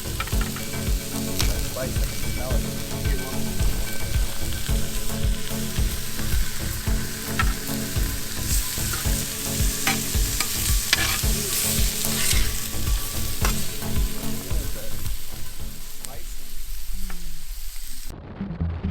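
Background music with a fast, steady beat and a bright hissing wash over it. The hiss cuts off suddenly near the end.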